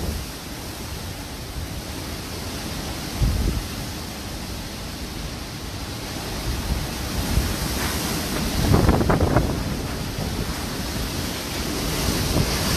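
Cyclone Fani's wind blowing in a steady hiss, with gusts buffeting the phone microphone as low rumbles about three seconds in and again from about eight to ten seconds.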